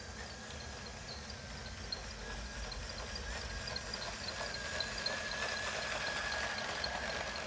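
LEGO train running on plastic track: a steady electric-motor whine with regular clicking of wheels over the track joints, about three clicks a second, growing louder as the train approaches.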